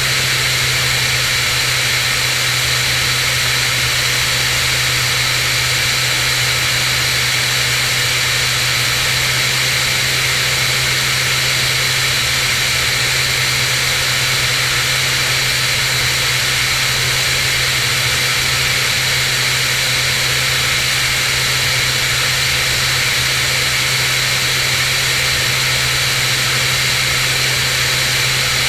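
Cirrus SR22's six-cylinder Continental piston engine and propeller running steadily in flight, a constant low drone under a thick rush of wind and airflow noise.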